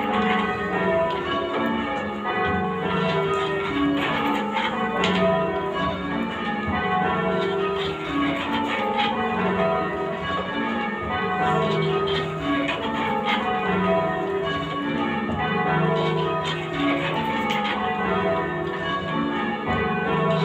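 Church bells rung full-circle in change ringing, struck one after another in rounds: a steady, continuous run of overlapping bell strikes, ringing before the method is called.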